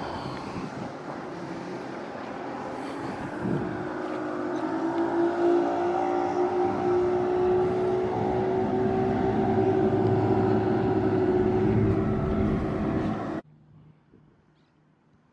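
An engine running with a steady hum that grows louder over several seconds, then a sudden drop to near silence about thirteen seconds in.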